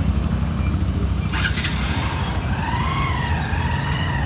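Steady low rumble of street traffic and engines, with a short hiss about a second and a half in. In the second half a wavering tone rises and falls for about two seconds.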